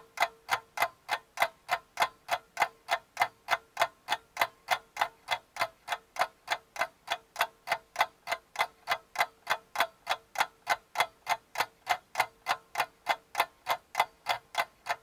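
Even, rapid clock-like ticking, about three ticks a second, over a faint steady hum.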